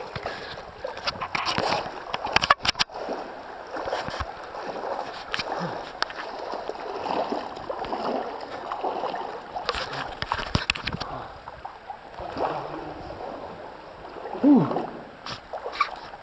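Creek water splashing and sloshing close to the microphone as someone wades through it, with sharp knocks from the camera being handled, a few seconds in and again about two-thirds of the way through. Near the end a person briefly gives a short exclamation.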